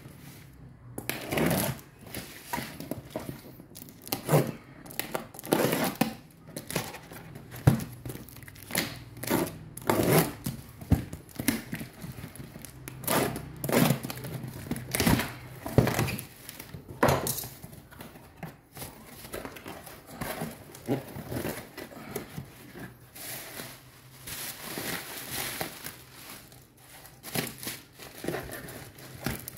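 Packing tape being ripped and peeled off a cardboard box in irregular rasping tears, with cardboard and plastic wrap crinkling as the box is opened.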